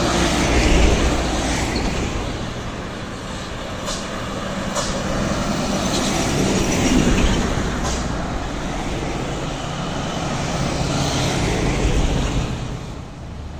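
Road traffic passing close by: heavy trucks and cars going past, a steady rumble of engines and tyres that swells as each vehicle passes, three times over.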